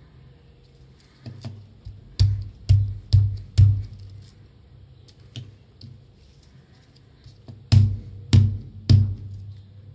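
Heavy knocks on a Victorinox Handyman pocket knife as its tight-fitting new plastic scales are forced into place: four knocks, a pause, then three more.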